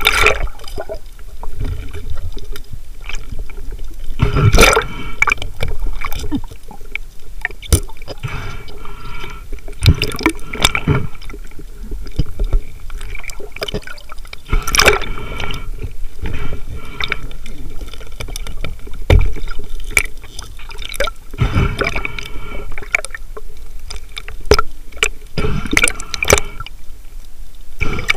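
Underwater sound picked up by a camera in its waterproof housing: water swishing and bubbling, with scattered clicks and knocks. A louder swish or knock comes about every five seconds.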